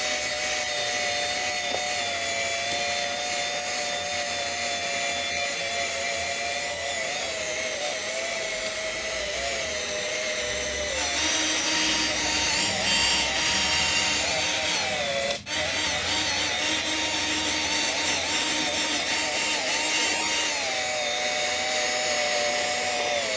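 Drill spinning a 3M 500-grit sanding disc against a plastic headlight lens: a steady motor whine with sanding rub, its pitch shifting as the load changes. The drill cuts out for a moment about fifteen seconds in.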